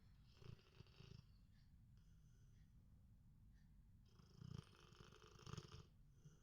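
Sleeping Labrador retriever snoring: two fluttering snores, a short one about half a second in and a longer one of nearly two seconds starting about four seconds in.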